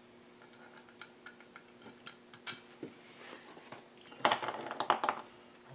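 Metal tools and small parts clinking as they are handled on a workbench: scattered light clinks, then about four seconds in a loud clatter of metal on metal lasting about a second. A faint steady hum runs underneath.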